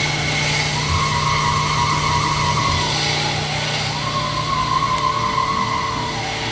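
Sunnen SV-10 vertical honing machine running on its automatic cycle, diamond stones honing a cylinder bore. A high whine comes and goes about every three seconds over a steady motor hum.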